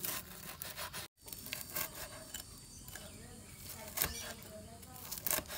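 Cleaver chopping crisp fried fish on a thick wooden chopping block: scattered knocks, the loudest about four seconds in, with a few quick chops near the end.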